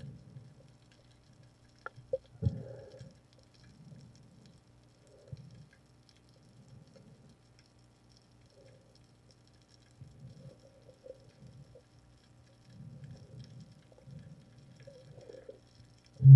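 Muffled underwater sounds of a diver swimming: irregular low thuds and swishes of water, over a faint steady hum. There is a sharp knock about two and a half seconds in and a much louder thump at the very end.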